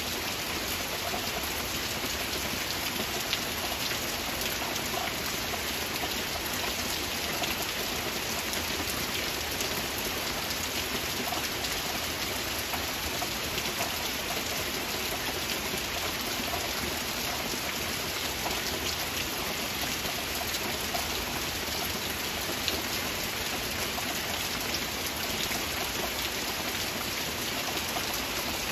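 Heavy rain falling steadily: a dense, even hiss of rain with many small drop ticks through it.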